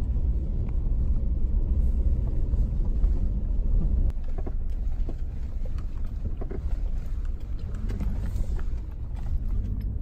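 Vehicle driving, heard from inside the cabin as a steady low rumble; the rumble eases a little about four seconds in.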